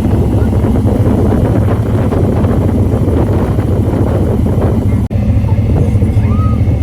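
Steady low rumble of a running vehicle, broken by a brief dropout about five seconds in.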